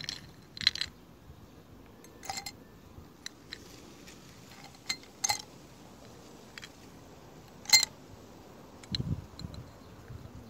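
Long sticks of ice dropped one at a time into a tall drinking glass, knocking against the glass and each other: several sharp clinks with a short glassy ring, the loudest about three-quarters of the way through, then a duller low knock near the end.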